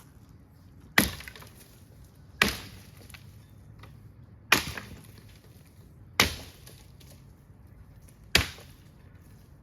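Firewood being chopped: five sharp strikes into wood, each ringing off briefly, spaced about every two seconds.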